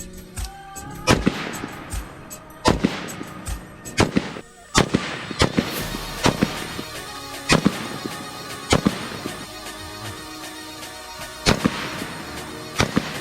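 Rifle gunfire on an outdoor range: about a dozen single shots at irregular intervals, each with a short echo.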